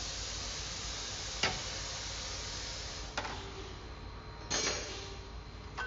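Hand tools clinking on metal: a few sharp clicks and taps over a steady hiss, as a 10 mm L-wrench works the bolts of an exhaust manifold heat shield.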